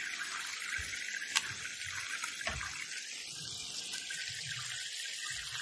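Food cooking on a stove top: pheasant simmering in a cream and milk sauce in a cast-iron pot next to a pan of frying vegetables, giving a steady sizzling hiss. There is one sharp click about a second and a half in.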